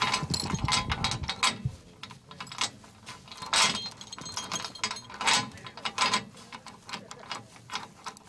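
A steel tow chain clinking and rattling against the bus's rusty steel frame as it is wrapped and hooked on, in a run of irregular metallic clicks and knocks.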